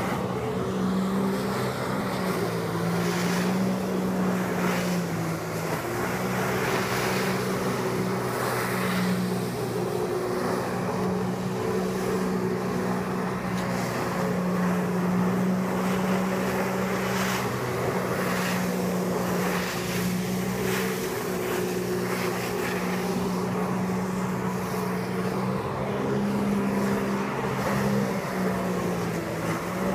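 Personal watercraft engine running hard to drive a flyboard's water jet, its pitch shifting slightly with the throttle, over a steady hiss of rushing water.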